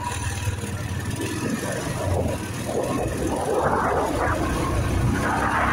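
A vehicle running: a steady low rumble that grows slightly louder about two seconds in.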